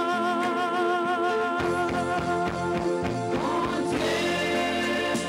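Gospel song with a woman singing: she holds a long note with vibrato, and about a second and a half in drum beats come in under the melody.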